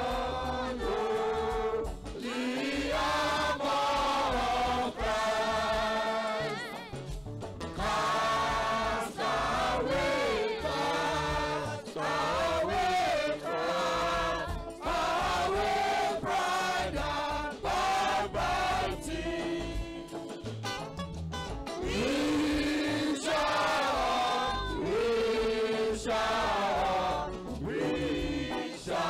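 Church choir of men and women singing a hymn together, amplified through microphones, in phrases with short breaks between them.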